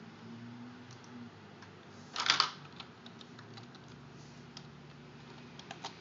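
Computer keyboard keys clicking while logging in to Windows: a loud clatter about two seconds in, then scattered lighter key clicks and two more near the end. A steady low hum runs beneath.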